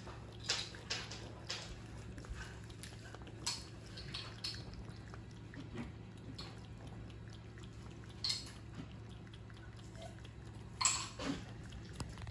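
Ragamuffin cat lapping liquid from a small ceramic bowl: soft, irregular wet clicks of the tongue, with a few louder ticks, the loudest about eleven seconds in. A steady low hum runs underneath.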